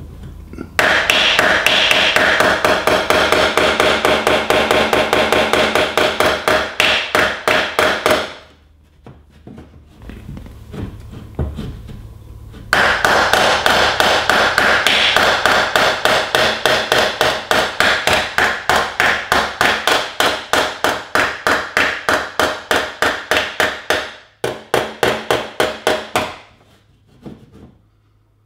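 Polished body hammer tapping rapidly on a car's sheet-metal fender, with a dolly pressed behind the panel, about four light strikes a second. It comes in three runs with short pauses between them. The blows are taking down the crown of a body-line dent and rolling the metal into the body line.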